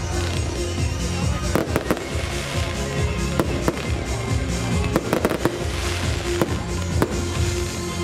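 Aerial fireworks shells bursting overhead, an irregular series of sharp bangs with crackle, over loud music playing with the display.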